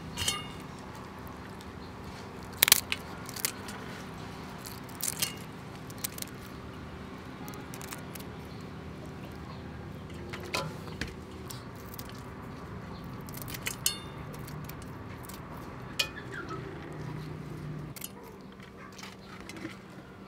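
Kitchen scissors snipping through raw tiger shrimp shells and heads over a stainless steel tray: sharp, irregular snips and clicks every second or few. A steady low hum runs underneath.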